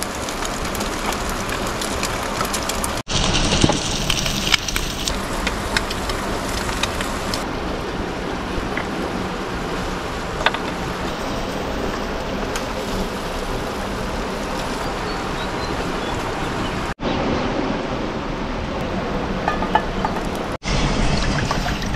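Fast river water rushing over rocks: a steady noise throughout, with a few light clicks and taps. The sound drops out for an instant three times, about three seconds in and twice near the end.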